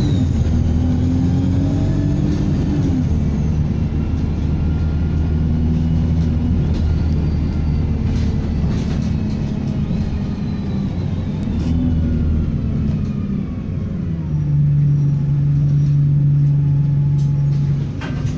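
Diesel engine of a Stagecoach service bus running under way, with a thin turbocharger whistle that falls in pitch as it eases off. Near the end the engine settles into a steadier, stronger low drone.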